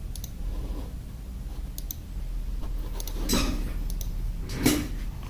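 LMK 81 mechanical keyboard giving a few scattered key clicks, with two deeper, heavier key strikes about three and four and a half seconds in, over a steady low hum.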